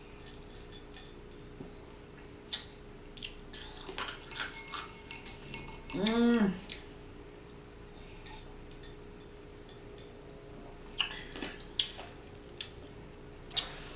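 Scattered clicks and clinks of food and a snack tray being handled while eating, with a stretch of crisp crackling about four to six seconds in, followed by a short hummed 'mm'.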